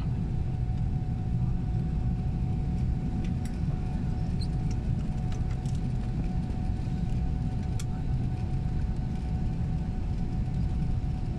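Steady low rumble inside the cabin of an Airbus A380 taxiing after landing, with a faint steady whine above it and a few faint ticks.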